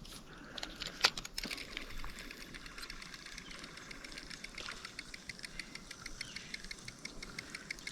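Spinning fishing reel being cranked on a retrieve: a sharp click about a second in, then a fast, even ticking that runs on steadily.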